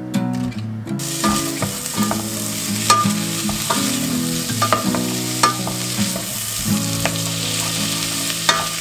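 Chopped onions sizzling in a hot stainless steel saucepan, the sizzle starting about a second in, with a spatula stirring them and scraping and knocking against the pot several times.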